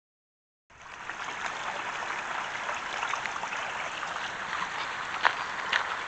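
Small rocky creek trickling and babbling over stones, starting about a second in. A couple of sharp clicks sound near the end.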